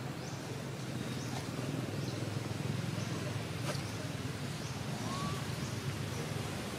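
Short high chirps repeating roughly once a second over a steady low rumble, with a single click about halfway through.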